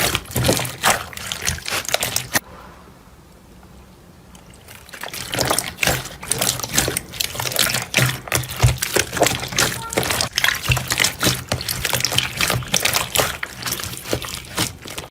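Slime being squeezed and worked by hand: a dense run of wet clicks and pops. It drops off about two and a half seconds in and builds back up a couple of seconds later.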